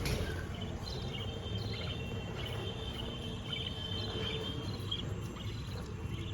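Budgerigars chirping and chattering in thin, high calls that come and go, over a steady low hum.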